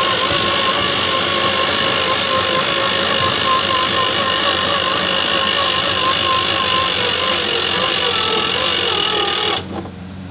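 Harbor Freight 2000 lb 12-volt marine winch (#61237) running under heavy load, its motor and gear train whining steadily as it drags a seized tractor up onto a trailer, then cutting off suddenly near the end as it is switched off.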